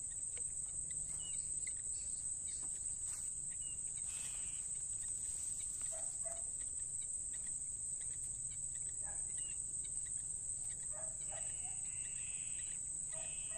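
Insects calling in one continuous high-pitched drone. A few short bird calls come through faintly now and then.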